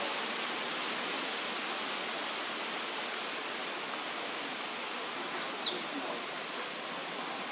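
Steady outdoor background hiss. A thin, high whistle runs for about a second and a half near the middle, and a few brief, very high chirps sweep downward about three-quarters of the way through.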